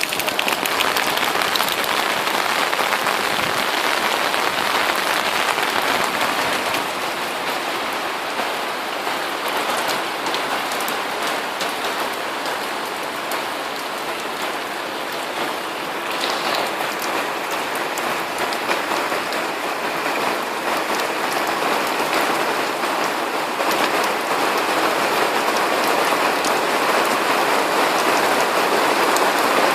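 Steady rain falling, a dense even hiss with fine pattering drops that eases a little midway and grows heavier near the end.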